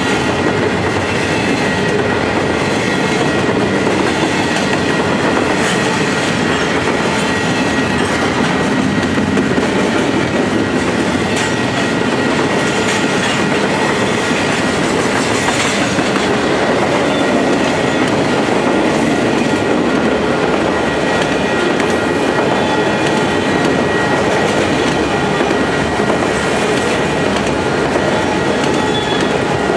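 Freight cars of a passing train rolling by, first double-stack container well cars and then autoracks: a steady wheel-on-rail rumble with clickety-clack over the rail joints. A thin, steady high ring runs over the top.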